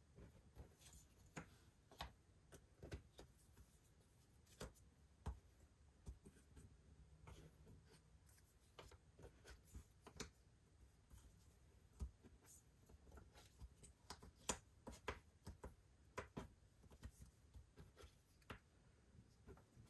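Jigsaw puzzle pieces being handled and set down on a table: faint, irregular small clicks and taps, coming thicker in the second half.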